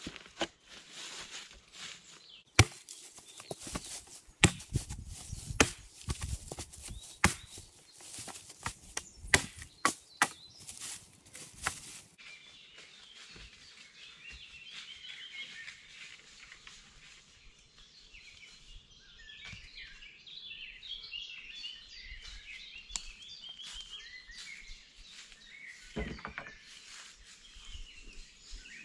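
A hand tool striking wood in sharp, irregular blows for about the first twelve seconds. After that, small birds chirp and twitter, with a few faint clicks.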